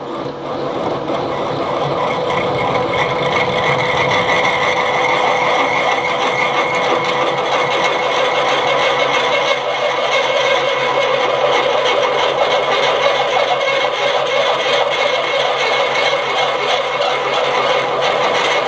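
Milling machine driving a tapping-size twist drill through what is left of a broken M16 stud's threads in a housing: a steady machine hum with an even cutting noise that builds up over the first second or two, then holds. The stud's threads are flaking away as the drill cuts.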